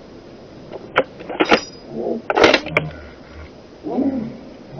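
Hunting dogs baying at a distance, with short arched calls, among a few sharp clicks and a brief crackling burst.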